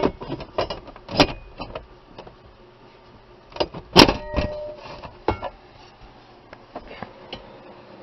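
Scattered metal clanks and knocks as a steel dashboard reinforcement plate is worked off its hook and dropped down, the loudest knock about four seconds in with a short metallic ring.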